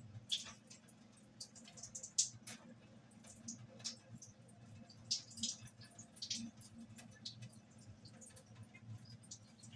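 Faint, scattered clicks and light clatters of kitchen items being handled, over a low steady hum.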